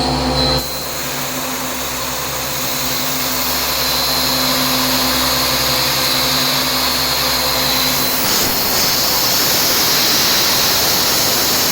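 CNC vertical machining centre running with a compressed-air blast hissing over the cutter, under a steady machine hum and a high whine. The low hum drops out about eight seconds in, leaving the air hiss.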